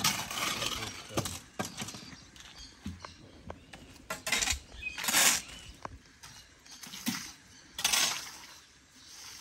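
Masonry work on stone and mortar: intermittent short scrapes and sharp clinks, with the louder scrapes about four, five and eight seconds in.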